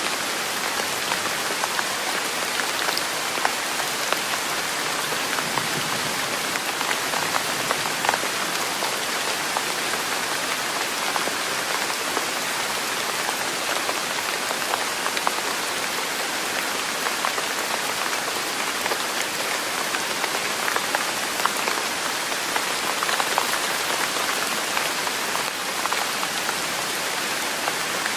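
Steady rain falling on a hard surface: an even, dense hiss dotted with many small drop ticks.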